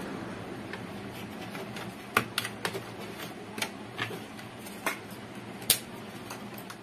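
A run of irregular sharp clicks and taps, about ten of them, as hands handle a CRT television's circuit board, over a low steady hum.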